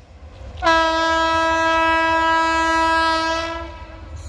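WAG-9 electric locomotive's air horn sounding one long, steady blast of about three seconds, starting about half a second in, over a low steady rumble.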